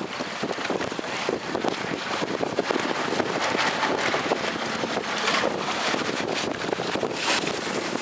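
Wind blowing hard across the microphone on open water: a steady rough rushing noise with constant crackling buffets, and the wash of choppy sea beneath it.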